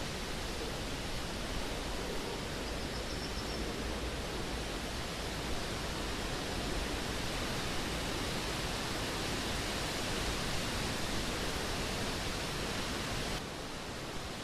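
Steady, even hiss with no distinct events, dropping slightly in level about a second before the end.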